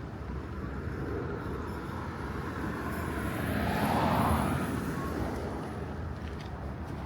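A vehicle passing by, its noise swelling to a peak a little past the middle and fading away again, over a steady background hum of traffic.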